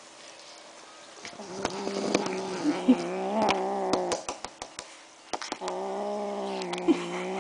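Kitten growling over a piece of raw chicken, guarding its food from another cat: two long, steady growls, the first starting about a second in and the second near the end, with a few sharp clicks between them.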